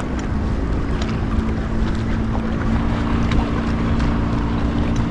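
A boat motor running with a steady, even hum, over a low rumble of wind on the microphone.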